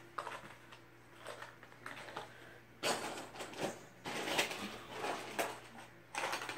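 Fishing-lure packages being handled and shuffled: plastic and cardboard packaging crinkling and clicking in irregular bursts, sparse at first and busier from about three seconds in.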